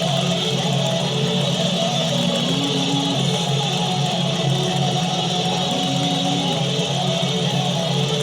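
Music with a guitar-like tone: a slow melody of held notes over a steady low drone.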